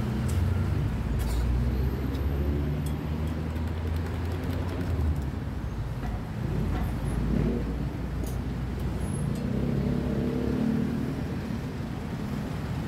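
Street traffic: a motor vehicle's engine runs close by with a steady low rumble that is strongest in the first five seconds. There are a few light clicks on top.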